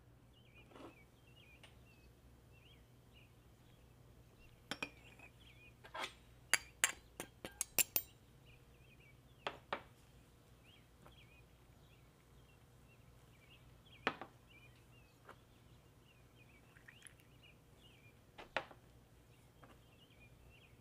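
Glass clinks as spices are added to a small glass mixing bowl: scattered single clinks and a quick run of several about six to eight seconds in. Faint chirping sounds continue underneath.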